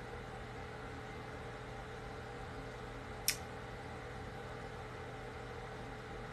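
Steady background hum of a small room, with a few faint constant tones in it, and one short sharp click about three seconds in.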